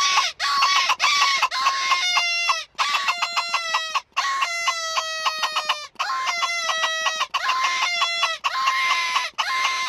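A Fan Collector Calls Double Talk predator call in use: a cottontail rabbit distress call blown in repeated falling squeals, trading off with a bellows squirrel barker's raspy barking, the squirrel answering the rabbit as a lure for coyotes.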